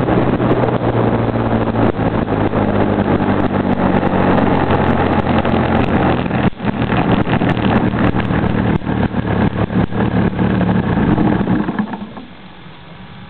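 Engine of a Hangar 9 RC model airplane running steadily as the plane rolls through grass, with scattered clicks and knocks. About twelve seconds in the engine cuts out and the propeller winds down, leaving only a faint steady noise.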